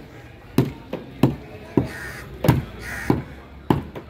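Heavy curved knife chopping barracuda pieces on a wooden block: about seven sharp chops at uneven intervals. A crow caws twice in the background, about two and three seconds in.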